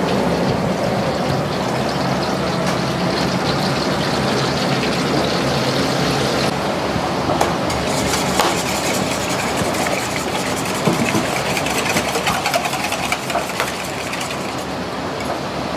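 Restaurant kitchen noise: a steady loud rushing, with a run of sharp crackles and clatter through the middle.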